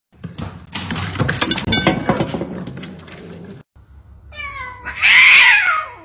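A cat meowing: one long, loud call near the end that falls in pitch, after a few seconds of rustling and clatter.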